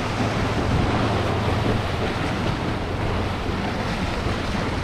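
Waves from a boat's wake washing against a rock wall in a steady, unbroken wash, with wind rumbling on the microphone.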